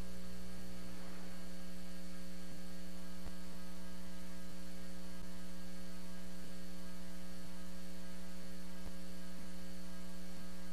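Steady electrical mains hum, a constant buzz with many overtones and a few faint ticks, unchanging throughout.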